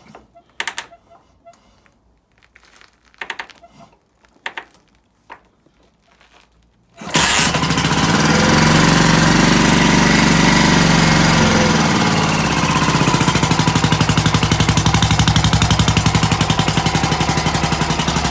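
A few sharp mechanical clicks and clunks, then about seven seconds in the stone-cold Armstrong MT500's single-cylinder Rotax four-stroke engine fires at once on the choke and keeps running. It revs up briefly, then settles into a steady, evenly pulsing idle.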